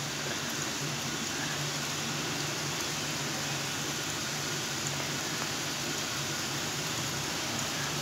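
Gram-flour sev strands deep-frying in hot oil: a steady sizzling and bubbling, with a faint low hum beneath it.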